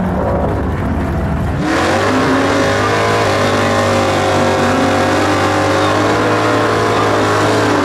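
Drag-racing 1963 Chevrolet V8 revving, then held at high revs through a burnout from about two seconds in, with the rear tyres spinning on the track. The engine note climbs and then holds steady for about six seconds, dipping briefly once.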